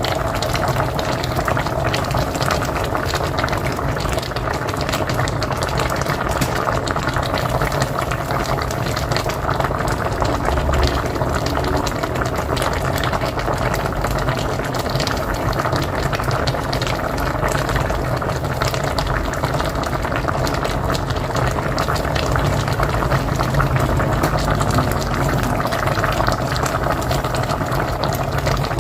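Pot of mocotó (cow's foot) boiling on a wood-fired stove: a steady, dense bubbling with many small pops.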